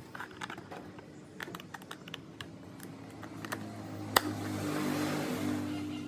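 Light, irregular clicking and tapping of small hard parts being handled. About four seconds in there is a single sharp click, followed by a hiss that swells and fades. Soft background music plays underneath.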